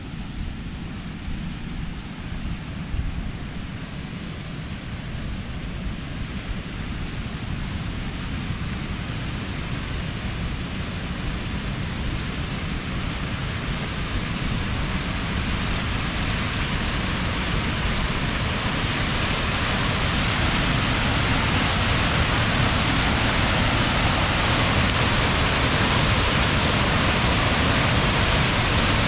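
Waterfall pouring from a concrete outlet down a rocky slope: a steady rushing of falling water that grows gradually louder and brighter as it is approached.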